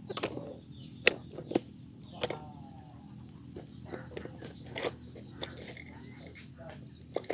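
A few sharp clicks and knocks from hand work on a Kubota ER65 diesel engine as its crankcase is being cleaned out, the loudest about a second in. A chicken calls briefly in the background.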